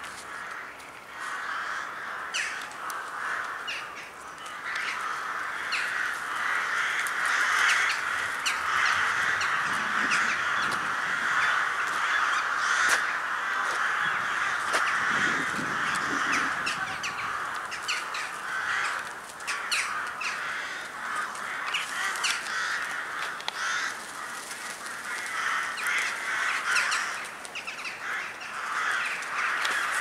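A large flock of crows cawing in a dense chorus of many overlapping calls, growing louder after a few seconds.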